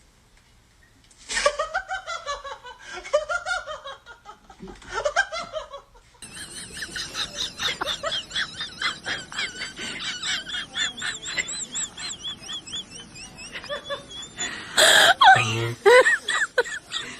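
Laughter in rapid, high-pitched bursts, with a sudden loud noise near the end.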